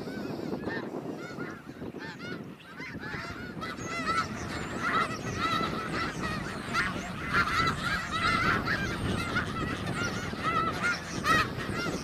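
A large flock of snow geese calling, many short high honks overlapping in a continuous chorus; the calling grows denser and louder about four seconds in.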